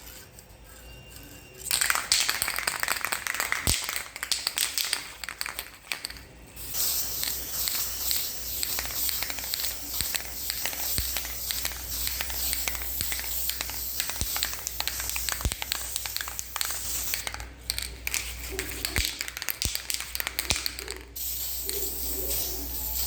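Aerosol can of Bondo filler primer spraying: a hiss of about five seconds starting about two seconds in, then after a short break a long spray of about fourteen seconds with a few brief pauses, stopping near the end.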